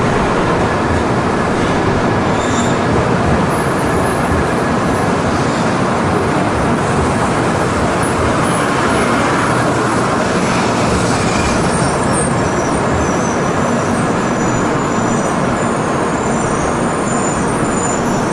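N700-series Shinkansen train running slowly alongside the platform, a steady loud rush of wheels and running gear as its cars pass, with faint high whines in the second half.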